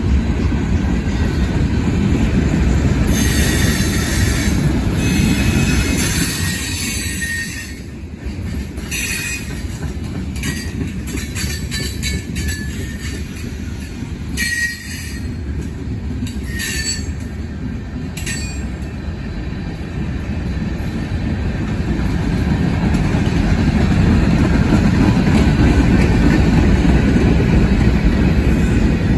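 A slow-moving freight train's cars rolling past: a steady low rumble of wheels on rail. High-pitched wheel squeal comes and goes through the first two-thirds, and the rumble grows louder near the end.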